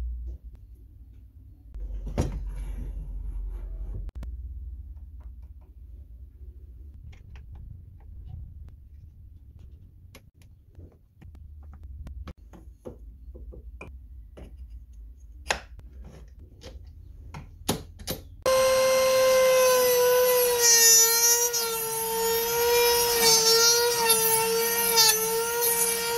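Trim router running in a small router table: a loud, steady high whine that comes in suddenly about three-quarters of the way in, its pitch wavering and dipping as a board is fed past the bit and cut. Before it, quiet clicks and knocks of parts being handled and adjusted.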